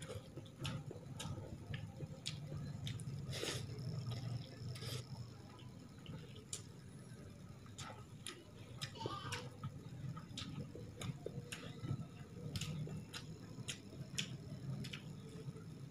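Close-up eating sounds: chewing and wet mouth clicks, with fingers squishing and mixing rice on the plate. These make scattered, irregular sharp clicks over a low steady hum.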